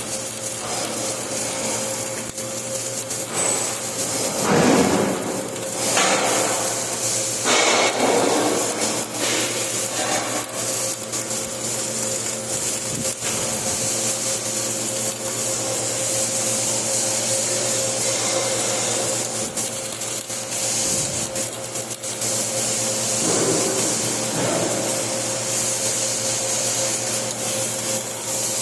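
Flux-core arc welding: the welding arc running continuously with a steady hum beneath it, and a few louder surges in the first ten seconds and again about 24 seconds in.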